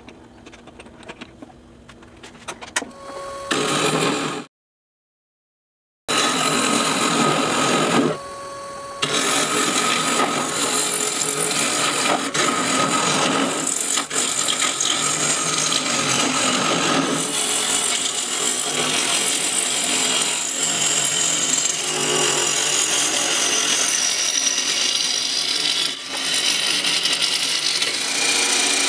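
A chuck key clicking faintly as a black walnut bowl is tightened in a wood lathe's chuck. After a short silence about five seconds in, a bowl gouge cuts the spinning walnut, a loud continuous rough scraping of shavings peeling off. The cutting breaks off for about a second near the start, leaving only the lathe motor's steady whine.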